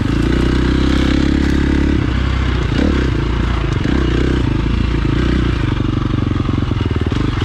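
2017 KTM 350 XC-F's single-cylinder four-stroke engine running while the bike is ridden, the engine note rising and falling with the throttle and shifting in pitch several times.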